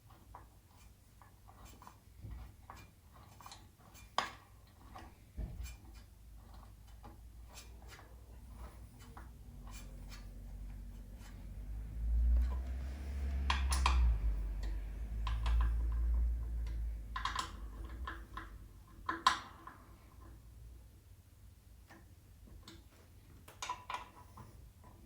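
Light metallic clicks and taps from hand tools working the bolts into an air bike's steel frame, with a few sharper knocks, one about 4 seconds in and several later. A low rumble runs through the middle for about ten seconds as the parts are handled.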